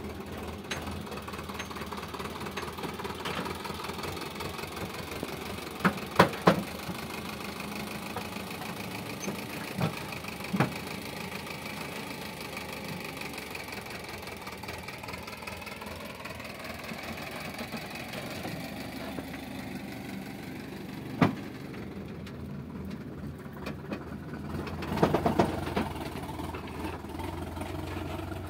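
Sonalika DI 750 tractor's diesel engine running steadily under load as it pulls a heavily overloaded trolley, with a few sharp knocks, in a quick cluster about six seconds in and again later.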